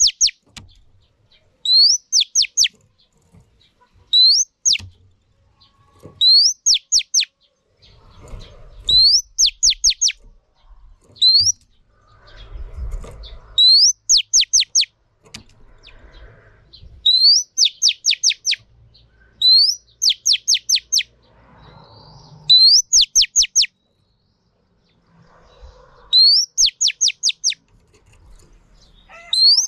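Female Oriental magpie-robin singing: one phrase over and over, about every two seconds, each a short rising whistle followed by a quick run of three to six falling notes. It is a female's song of the kind used to stir up male birds.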